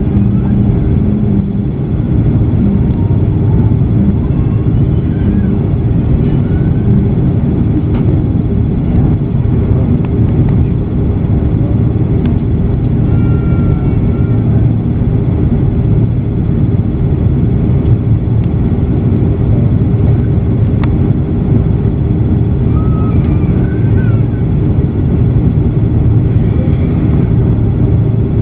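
Steady low rumble of an Airbus A330-200 airliner's engines and cabin air, heard from inside the cabin as the plane taxis to the gate after landing.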